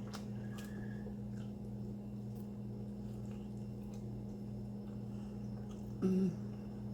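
Steady low hum in a small room, with a few faint clicks. About six seconds in there is one brief, low-pitched vocal sound from a person.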